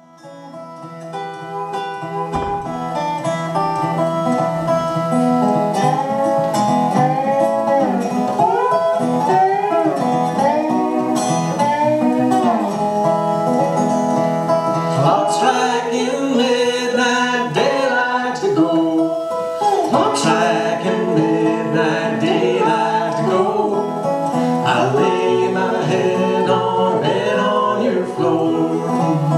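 Resonator guitar played live in a country, bluegrass-like style, with notes that slide up and down in pitch over a steady bass note. It fades in from near silence at the start.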